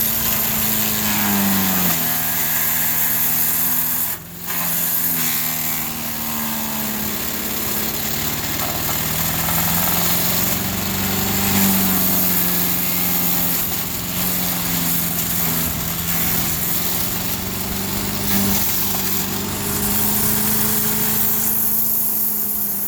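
Craftsman 4 HP chipper/shredder running while wood is fed through, its small engine's pitch sagging and recovering under the load over a steady grinding, shredding noise. The sound drops out sharply for a moment about four seconds in.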